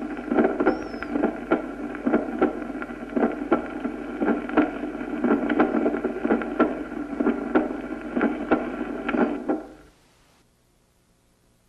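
Recorded heart sounds: a regular beat about once a second with the first heart sound split, the example of complete right bundle branch block, where the right ventricle contracts later. Steady hiss and hum lie under the beats, and the recording stops about ten seconds in.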